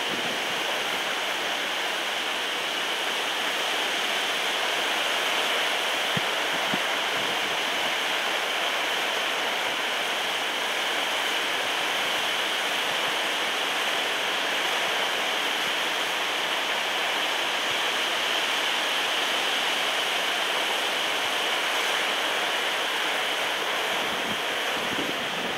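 Small waterfall rushing steadily as water tumbles over stones.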